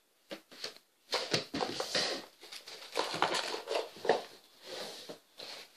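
Irregular rustling and crinkling handling noises close to the microphone, coming in short uneven clusters.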